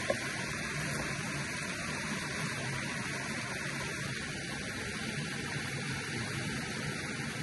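River water flowing: a steady, even rushing noise, with one brief click right at the start.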